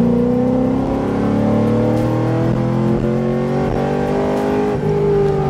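2006 Chevrolet Corvette's V8, heard from inside the cabin, pulling under acceleration with its pitch rising slowly. Near the end the revs drop sharply at an upshift of its manual transmission, then start climbing again.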